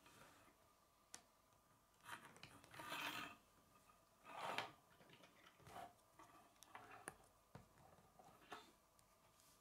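Plastic K'nex rods and connectors being handled, rubbing and scraping against each other and the wooden tabletop, with light clicks. A longer scraping stretch comes about two seconds in and a louder one about four and a half seconds in.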